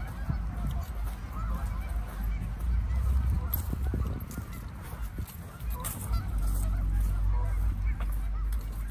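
A flock of Canada geese honking, many short calls overlapping throughout, over a low rumble.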